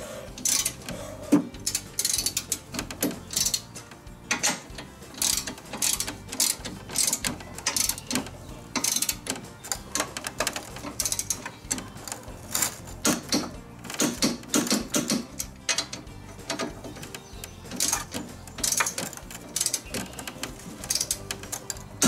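Click-type torque wrench ratcheting as the mower's blade bolts are tightened, in repeated short bursts of clicks about once a second. The wrench is set to about 40 foot-pounds and clicks when a bolt reaches that torque.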